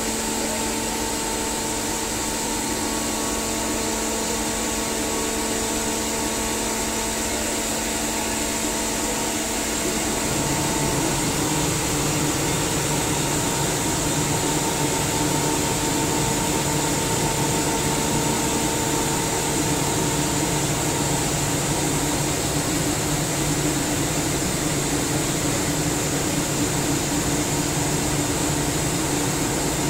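SCR50M rotary screw air compressor running with a steady hum and hiss. About ten seconds in, the sound shifts: a deeper hum comes in and it gets slightly louder, then holds steady.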